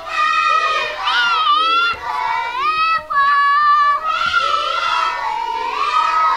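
A group of children's voices singing and shouting together, in high phrases about a second long that rise and fall in pitch.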